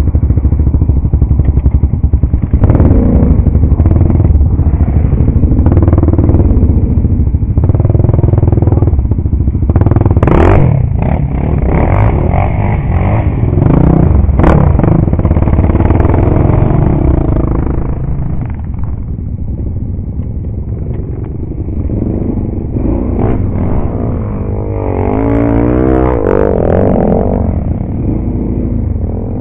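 ATV engines running close by, with a few sharp clacks partway through. Near the end an engine revs up and down several times.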